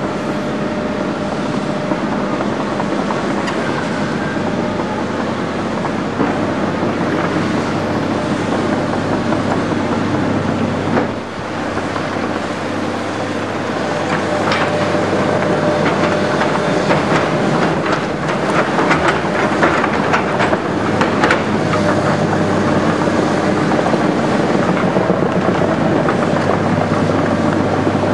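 Diesel engines of tracked excavators running with a steady hum, with rattling and clanking of steel tracks and the bucket on rubble, more frequent from about halfway through.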